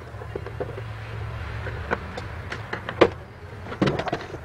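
Plastic housing of an induction cooktop being handled and turned over: scattered clicks and knocks, a sharp knock about three seconds in and a cluster of rattling knocks near the end, over a low steady hum.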